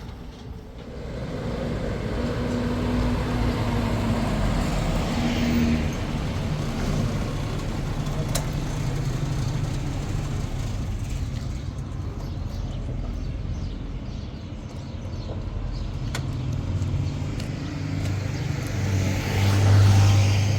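A motor vehicle's engine running steadily, growing louder near the end.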